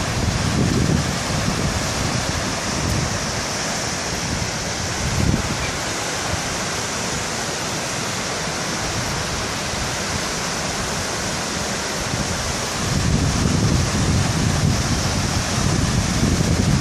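Hotnica waterfall rushing steadily, with wind buffeting the microphone in low gusts that grow stronger in the last few seconds.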